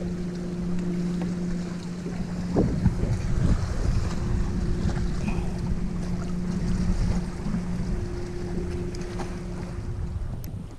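Steady hum from a small motor on a bass boat, with wind buffeting the microphone and a few light knocks from handling.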